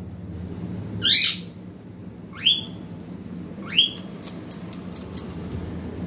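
Green parakeet giving three loud, harsh screeching calls, the second and third sweeping up and back down, followed by a quick run of sharp clicks.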